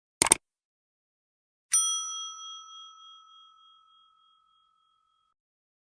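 A very short double click, then a single bell ding struck sharply that rings on and dies away over about two and a half seconds, like an edited sound effect.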